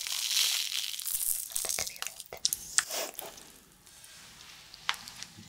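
Blueberry popping candy shaken from its foil packet onto a sticky red sugar candy, with a dense crinkling, rustling hiss of granules and packet for about two seconds. A few sharp clicks and crackles follow, then it goes quieter with only scattered faint clicks.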